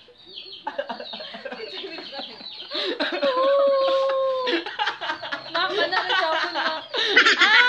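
A group of young people laughing and shrieking, with one long, held cry about halfway through and a burst of high-pitched laughter near the end.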